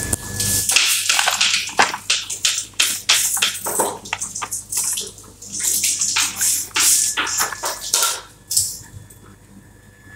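Water splashing and sloshing in a plastic tub as raw chicken breasts are rinsed by hand, in quick irregular splashes that die down about eight and a half seconds in.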